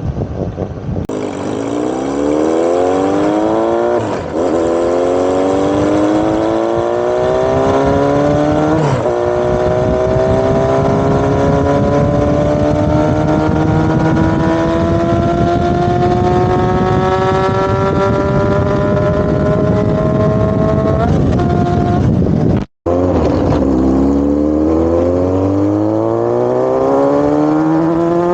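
Exhaust note of an engine fitted with a modified Realize universal aftermarket silencer, accelerating through the gears: the pitch climbs, drops back at each shift about 4 and 9 seconds in, then makes a long steady climb. After a brief cutout a little past 22 seconds it climbs again from low revs.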